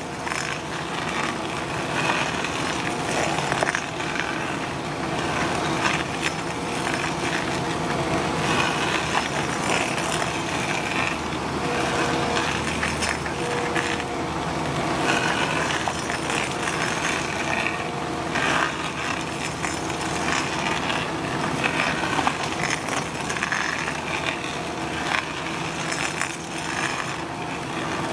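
Rotor hydraulic stump-grinder head boring down into a tree stump: the cutter chews and crackles through the wood with scattered clicks over the steady hum of the carrier machine's engine and hydraulics.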